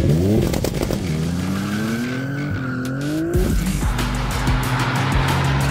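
Sports car engine revving sharply, then pulling hard with its pitch climbing, dropping and climbing again before cutting off about three and a half seconds in, over background music.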